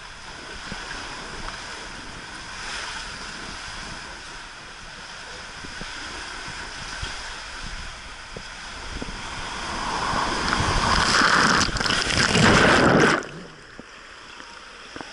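Water rushing and splashing on a water slide ride, with wind noise on the microphone. The rush swells to a loud peak about ten seconds in and cuts off sharply a few seconds later.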